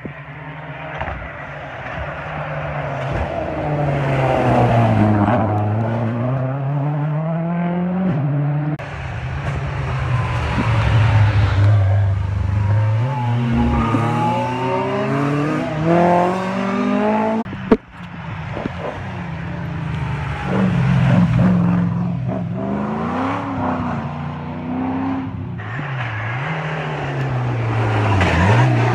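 Historic rally car engines passing one after another on a wet tarmac stage, each dropping in pitch as the car brakes for the chicane and rising again as it accelerates away. The sound breaks abruptly twice, about a third and about two thirds of the way through, as one car gives way to the next.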